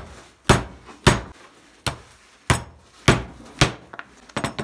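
A hammer striking the top of a wood chisel six times at about a blow every half-second, driving the chisel into a glued joint between small wood blocks to split it. A few lighter clicks and taps follow near the end.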